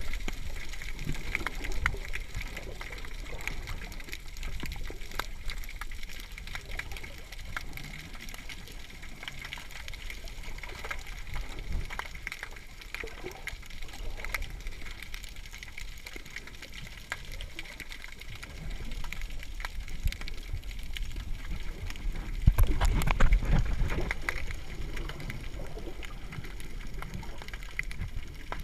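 Water heard through a GoPro Hero3's waterproof housing underwater: a muffled, steady wash with a low rumble and many small clicks and crackles. It swells louder for a couple of seconds about 23 seconds in.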